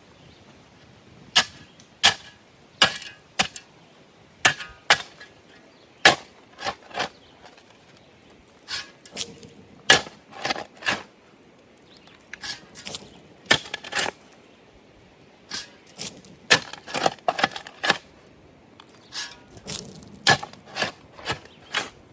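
A digging tool chopping into the soil by hand: sharp, irregular strikes, often two to four in quick succession, with short pauses between runs.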